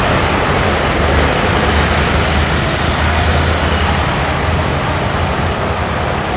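A heavy road vehicle passing: a low engine rumble over steady tyre and road noise, strongest from about one to four seconds in and easing off near the end.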